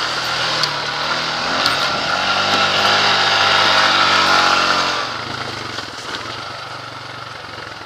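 ATV engine revving under load, its pitch and loudness climbing for a few seconds as the quad pulls up a dirt bank, then easing off about five seconds in to a quieter, lower run.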